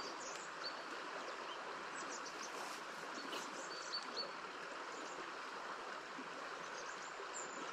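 Steady rush of stream water flowing, with a few faint short high chirps now and then.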